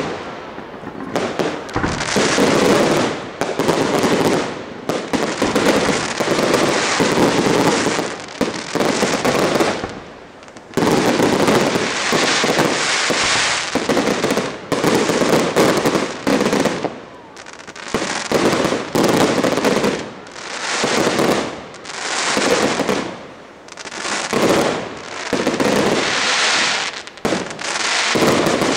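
Aerial firework shells bursting one after another in a professional display, each report sudden and then trailing off, with short lulls between the volleys.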